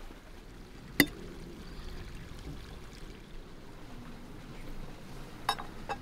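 A metal spoon clinks sharply once against a terracotta clay bowl about a second in, with two fainter clicks near the end, over a steady low outdoor background noise.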